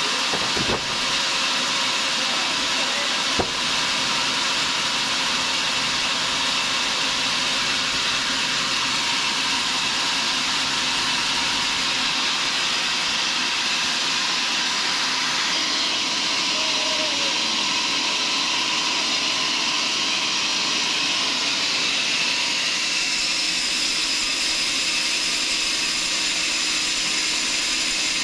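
Log band sawmill running steadily between cuts, a constant machine hum and hiss from its motor and spinning band blade. There is a sharp knock about a second in and another about three seconds later.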